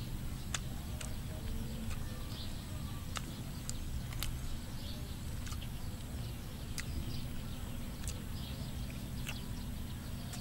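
Close-up eating sounds: chewing and wet lip smacks, heard as sharp clicks at irregular intervals over a steady low rumble.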